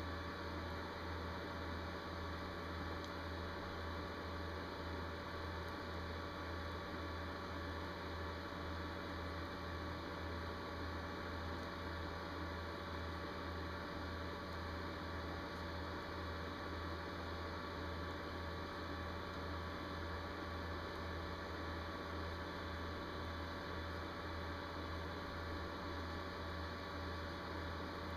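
Steady low electrical hum with a faint hiss, unchanging throughout; no clicks of the knitting needles stand out.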